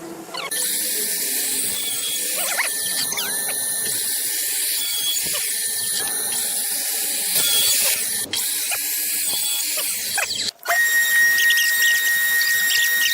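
Electric woodworking power tool running with a high whine over a hiss, stopping for a moment about ten and a half seconds in and then running on with a steadier, higher whine.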